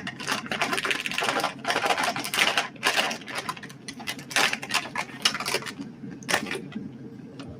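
Quick, irregular clicking and scraping of a kitchen utensil against a container as spice powder is added to a chicken marinade.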